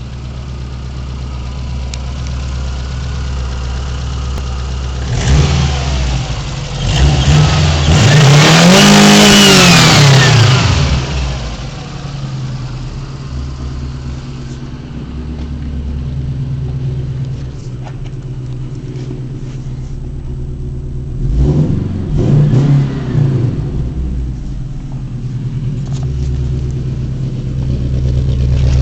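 Subaru flat-four boxer engine with an aftermarket exhaust (Stinger header, Kalina Sport resonator, Pro Sport muffler) running and being revved. A few short blips come about five seconds in, a long rev rises and falls about eight to ten seconds in, and two more blips come around twenty-two seconds in.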